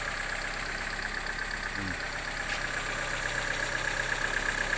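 Opel Astra G car engine idling steadily, running again after a fault that had it cranking but not starting.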